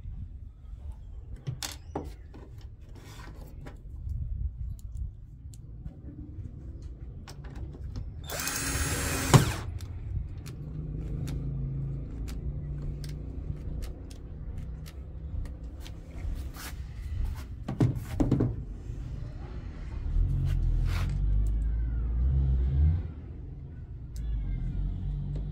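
Cordless drill-driver spinning up once for about a second, driving a screw into the washing machine's plastic panel, and stopping with a sharp click. Scattered clicks and knocks of the plastic parts being handled come before and after.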